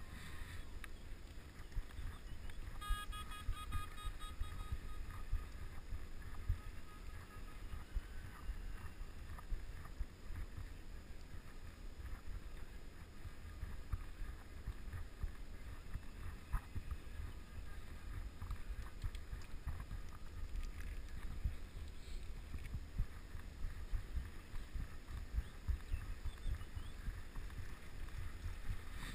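Wind and road rumble on a bike-mounted action camera's microphone while riding: a steady low buffeting with small gusts throughout. A brief pitched call or whistle cuts through about three seconds in.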